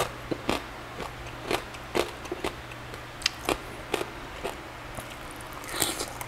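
Close-miked chewing of charcoal-grilled pork belly (liempo), with short sharp crunches about twice a second and a louder crunchy bite near the end.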